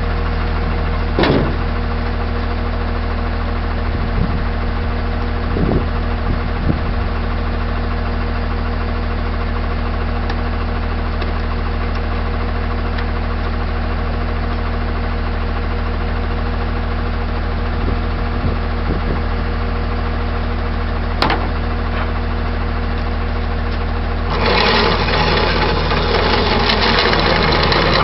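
Tow truck's engine idling steadily, with a few sharp clicks along the way. About three-quarters of the way through, a louder rushing noise comes in and holds.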